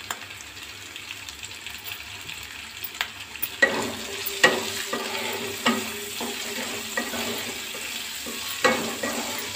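Onions and green capsicum sizzling in hot oil in a non-stick kadhai. About three and a half seconds in, a wooden spatula starts stirring them, knocking and scraping against the pan several times.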